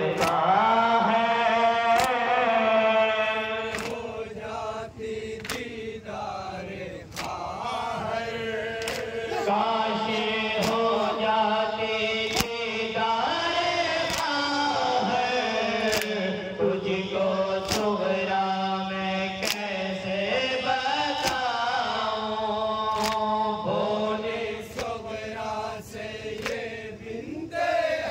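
Male reciters chanting an Urdu nauha (mourning lament) into microphones, with a crowd of men doing matam, beating their chests in time: a sharp slap about every two seconds under the held, wavering sung lines.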